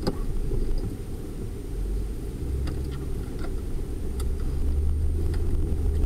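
Car engine and road rumble heard from inside the cabin as the taxi drives off on a snowy road. It is a steady low drone that grows louder about two and a half seconds in, with a few faint clicks.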